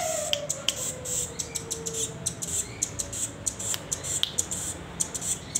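Young rambatan doraemon (white-billed, striped nuthatch-type songbird) giving a run of short, sharp, high chip calls, two or three a second and irregular. A low falling tone fades out about two seconds in.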